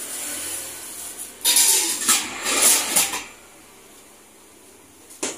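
Kitchen handling noise at a gas stove: about two seconds of loud, ragged rattling and rustling starting about a second and a half in, then a single sharp click near the end.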